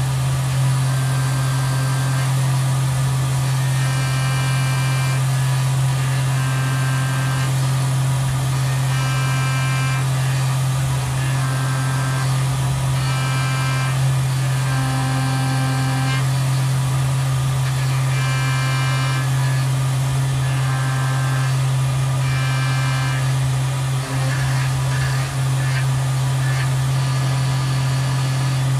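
Tormach 770M+ CNC mill spindle running steadily at about 8000 rpm, with its 3/8" two-flute end mill contour-milling aluminium under flood coolant: a loud, even hum. Short repeating tones sound over it, coming and going about every second.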